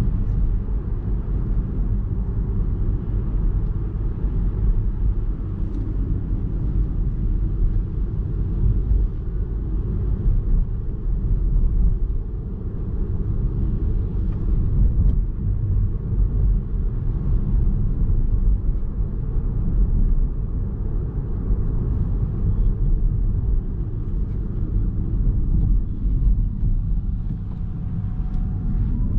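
A 2021 MINI Cooper S E ALL4 Countryman plug-in hybrid driving along: a steady, low rumble of tyre and road noise.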